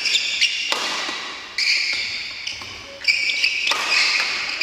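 Badminton rally sounds in a large sports hall: sneakers squeaking sharply on the wooden court floor, several times, mixed with the sharp pops of rackets striking shuttlecocks.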